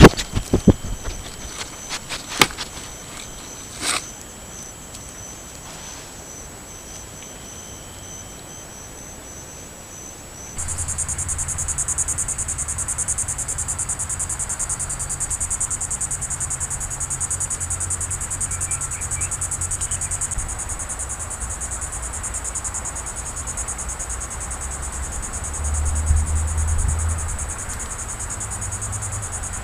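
Trail camera microphone audio: a few sharp knocks and clicks in the first seconds while an animal is pressed against the camera, then, from about ten seconds in, insects trilling steadily at a high pitch over a low rumble.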